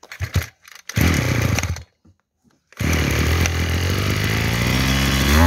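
Maruyama 24cc two-stroke brush cutter being pull-started: a few short pulls of the starter cord, a brief firing that dies after about a second, then the engine catches near the three-second mark and runs steadily at idle.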